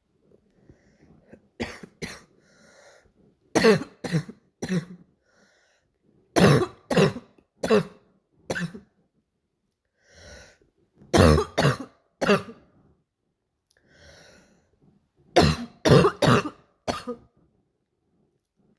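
A girl's harsh, barking cough, coming in five fits of two to four coughs each, with breaths drawn in between the fits.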